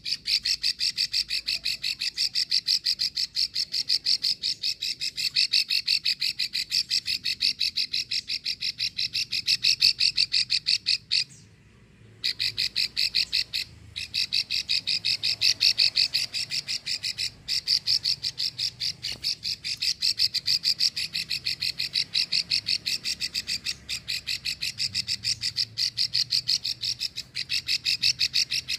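Female plain prinia (prenjak sawah) giving its long, rapid dry clicking rattle, known as 'ngekrek', many ticks a second, with one brief break about eleven seconds in.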